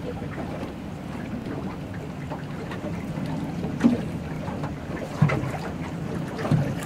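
Steady wind and water noise aboard an open fishing boat, with a few short knocks in the second half.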